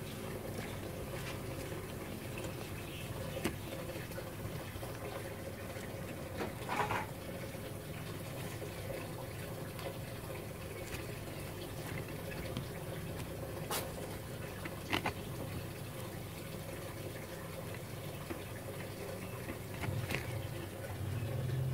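Coconut-husk chunks and charcoal handled and pressed into a terracotta pot: faint rustling with a few light clicks scattered through, over a steady low background hum.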